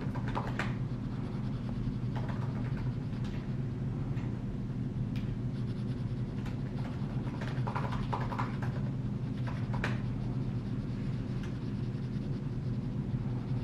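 A plastic stylus tip tapping and scratching on a tablet's glass screen while drawing, in short scattered strokes. A steady low hum runs underneath.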